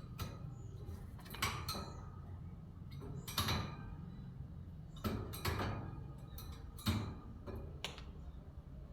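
A series of irregular sharp knocks and rattles, about eight in all, spread unevenly over a few seconds.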